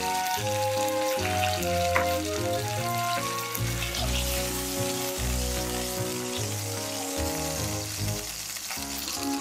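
Pork belly rolls sizzling steadily in hot oil in a frying pan, searing seam-side down to seal the rolls closed, under light background music.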